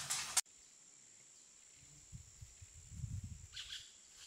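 Faint nature-soundscape sound effect for a logo intro: a steady high insect-like tone with a low rumble in the middle and a few chirps near the end. A short noise at the very start is cut off abruptly.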